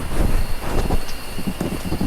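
Heavy rain falling steadily, with a low rumbling wind noise on the microphone.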